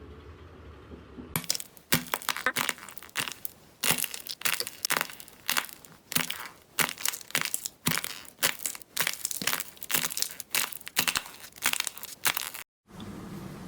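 Crisp crunching and crackling from a crunchy material being squeezed and crushed by hand, about two crushes a second. It cuts off abruptly near the end.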